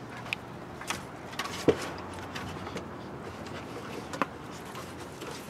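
Steady outdoor background noise with a few short, sharp knocks, the loudest about a second and a half in.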